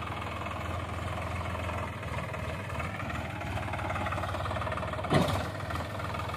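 Sonalika tractor's diesel engine running steadily as it pulls a loaded tipping trailer slowly over a dirt mound, with one sharp thump about five seconds in.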